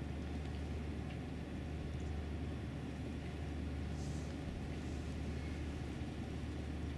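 Outdoor ambience over a large crowd standing in silence: a steady low rumble with a light hiss and no voices, and a faint brief rustle about four seconds in.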